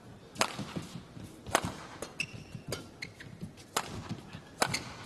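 Badminton rally: rackets hitting the shuttlecock in sharp cracks about once a second, the players trading shots back and forth.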